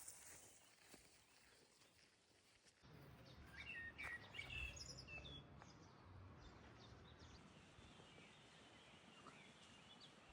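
Small birds chirping faintly in short calls, clustered a few seconds in and thinning out afterwards, over a low outdoor rumble that comes in suddenly about three seconds in.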